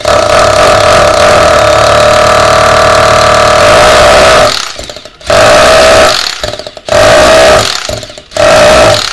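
Makita AVT rotary hammer set to hammer-drill mode, its motor running at full speed for about four and a half seconds, then switched on and off in short bursts of about a second each.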